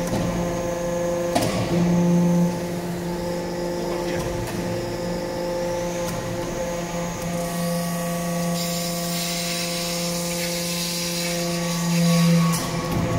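Hydraulic metal-chip briquetting press running: a steady hum from its hydraulic pump and motor, swelling louder about two seconds in and again near the end as the press works. A knock comes a little over a second in, and a high hiss joins for a few seconds in the second half.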